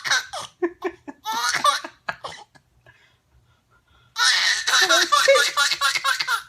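Eight-month-old baby girl laughing: a few short bursts of laughs, a pause of about a second and a half, then a long unbroken run of laughter near the end.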